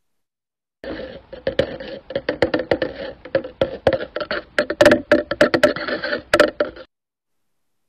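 A person making a quick run of mouth clicks and smacks, the kind of noise used to catch a pet's attention, recorded on a phone as a custom camera shutter sound. It starts about a second in and cuts off abruptly about a second before the end.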